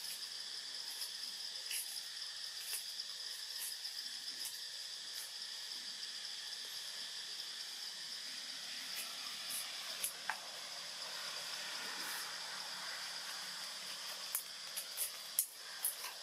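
Steady high-pitched drone of insects, with scattered short crackles of dry leaf litter as a macaque moves and eats, and a cluster of louder crackles near the end as it walks off.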